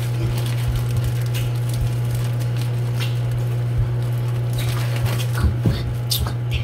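Microwave oven running with a steady low hum while it heats food, with scattered light taps and knocks over it.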